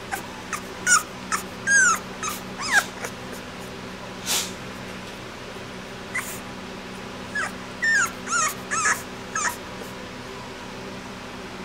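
Two-week-old boxer puppy whimpering in short, high-pitched squeaks and whines, many falling in pitch: a string of them in the first three seconds, one more a little after four seconds, and another string from about six to nine and a half seconds.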